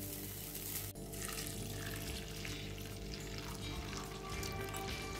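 Milk being poured into a pan of fried flattened rice (aval), a steady liquid pouring sound, after a brief moment of a spatula stirring the flakes at the start.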